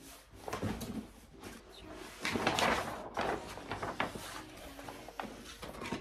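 Books and paper being handled: scattered light knocks and clicks with a rustle about two seconds in. Faint background music plays underneath.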